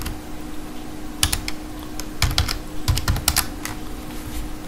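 Computer keyboard being typed on in a few short bursts of keystrokes, over a faint steady hum.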